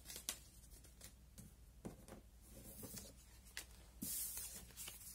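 Handwritten paper cards being gathered up off a tabletop: faint light taps and papery rustles, with a longer swish of paper sliding about four seconds in.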